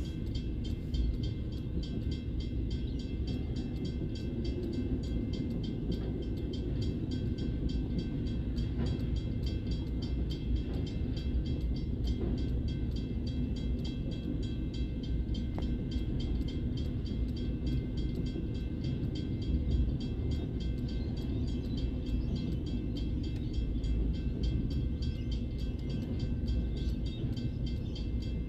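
Freight train wagons rolling past a level crossing with a steady low rumble of wheels on the rails. The crossing's warning bell rings rapidly and evenly over the top.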